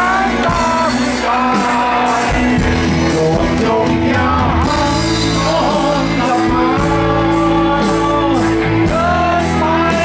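Live rock band playing at a steady beat, with a man singing lead through the PA over drums, bass and electric guitar.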